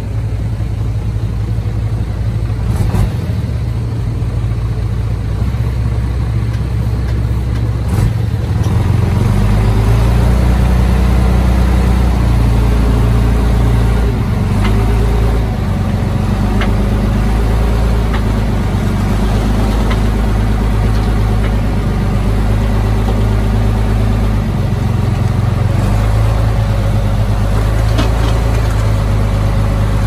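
Heavy diesel engine of earthmoving machinery running steadily, its note stepping up and down several times. Two sharp knocks come in the first eight seconds.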